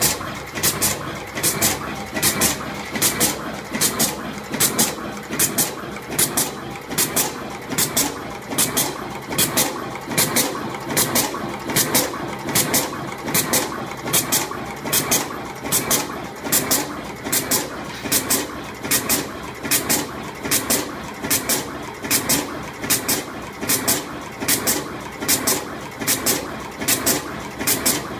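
Automatic single-head wire twisting and terminal crimping machine running through its cycle over and over: a steady mechanical hum with a regular rhythm of sharp strokes in pairs, a pair a little under every second.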